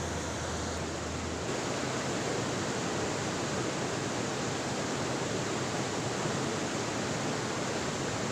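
Steady rushing of flowing water, an even hiss with no separate events. A low hum sits under it at first and stops about a second and a half in.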